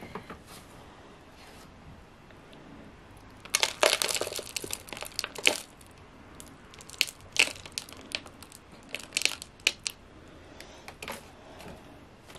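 Loose soil being added to a clear plastic cup, with crackling and crunching from the substrate and the handled plastic: a dense burst about three and a half seconds in, then scattered sharp crackles.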